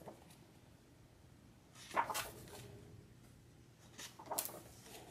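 Pages of a large hardback book being turned by hand: two short paper swishes, about two seconds in and again about four seconds in.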